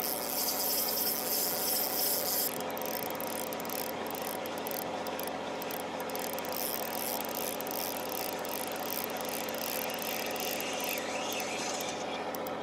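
Spinning reel being cranked in the first couple of seconds, retrieving line under load with a squid on, over a steady drone from the boat's engine.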